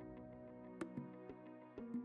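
Quiet background music: held tones with a few soft note attacks.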